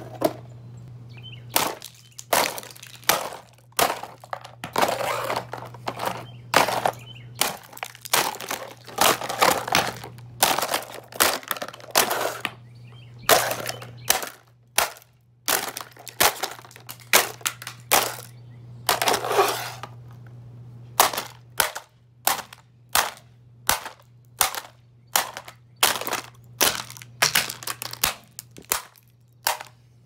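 A golf club repeatedly smashing a plastic Proctor Silex drip coffee maker on concrete: dozens of sharp cracking blows, roughly one a second, with breaking plastic crunching and pieces clattering after some strikes.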